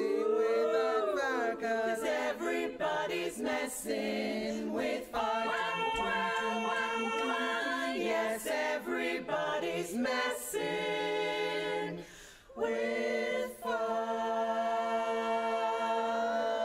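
Women's a cappella barbershop ensemble singing close-harmony chords, with a short break about twelve seconds in before a long held chord.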